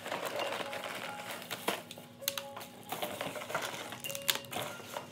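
Scattered light clinks and taps of small hard objects, with a few brief tones and a faint steady hum underneath.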